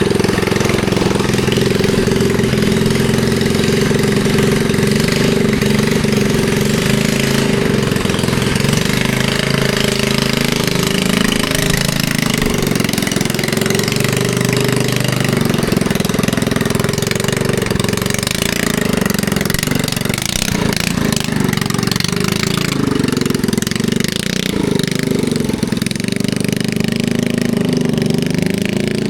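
Predator 212cc single-cylinder four-stroke engine on a home-built mini bike, running while the bike is ridden, its pitch rising and falling with the throttle.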